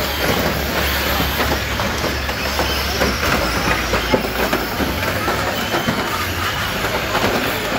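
A pack of radio-controlled derby cars running and bashing into each other, a busy clatter of plastic bodies knocking together, over a steady low hum and crowd chatter.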